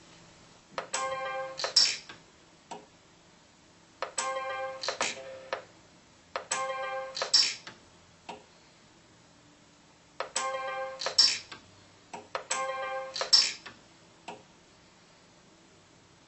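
Orion Pulse 100c pulse arc micro welder making five welds. Each is a steady electronic tone of about a second, begun with a click and ending in a sharp crack as the arc pulse fires. A faint click sometimes follows.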